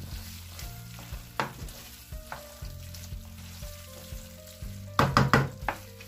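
Wooden spoon stirring bow-tie pasta through a cream sauce in a frying pan on the hob, with soft scraping and light clicks, and a quick run of louder knocks of the spoon against the pan about five seconds in.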